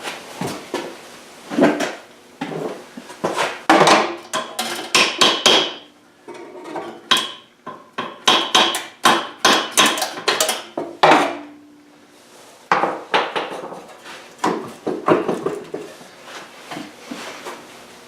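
Hammer blows on metal, many quick strikes in runs with short pauses between them, some with a metallic ring.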